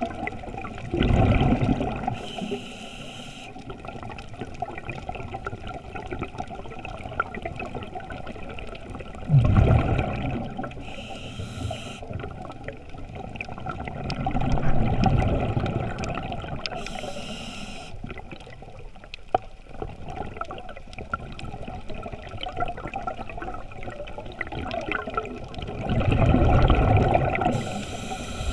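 A scuba diver's regulator breathing, heard underwater through a GoPro housing: four breaths, each a loud gurgling rumble of exhaled bubbles followed by a brief high hiss, over a steady low wash of water.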